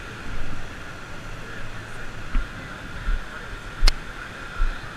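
Footsteps on sand thumping through a body-worn action camera as the wearer walks, over steady wind and beach background noise, with one sharp click about four seconds in.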